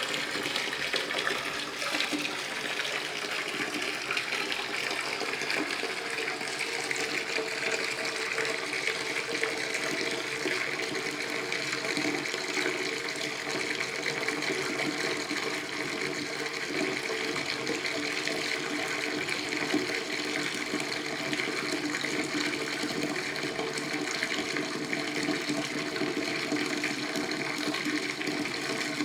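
Water running from a tap into a filling bathtub, a steady rush without a break.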